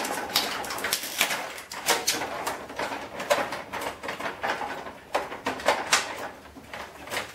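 Irregular clicks, knocks and rattles of plastic and steel parts being handled and pried loose as a photocopier is taken apart.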